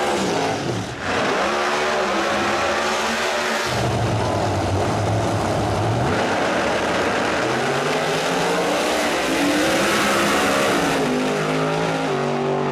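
Drag racing cars' big V8 engines revving hard during a burnout, then holding at the start line, then launching at full throttle and pulling away down the strip with the pitch rising.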